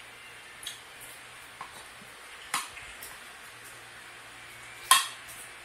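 Kitchen items being handled on a table: a few light clicks and knocks, with one sharp, louder click about five seconds in, over a faint steady low hum.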